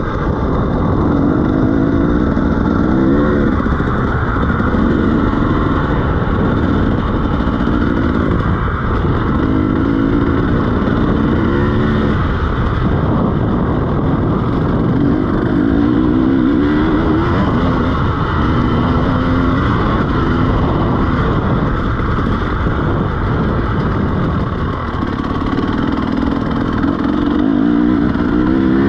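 KTM EXC 300 two-stroke dirt bike engine with a SmartCarb 2 carburettor, heard from on the bike while it is ridden: the revs rise and fall again and again as the throttle is opened and closed, over a steady rush of noise.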